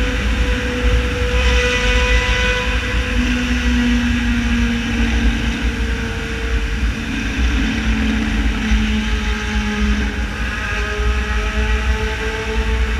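Yamaha XJ6 Diversion inline-four with a full straight-pipe exhaust running at a steady cruise, with wind rushing over the microphone. The engine note shifts slightly in pitch a few times.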